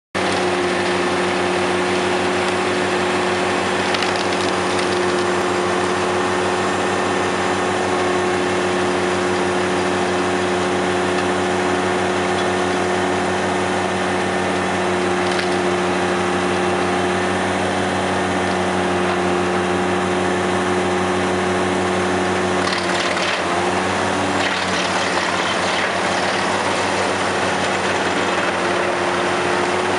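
Tractor-driven wood chipper running with a steady hum while scrub branches fed in by a crane grapple crack and splinter as they are chipped. The crackling is heaviest from about 23 to 26 seconds in, where the running note sags briefly as the machine takes the load.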